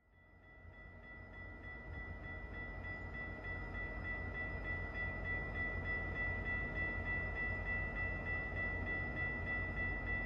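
Railway level-crossing warning bell ringing steadily while the crossing lights flash and the gate arms lower, fading in over the first few seconds above a low rumble.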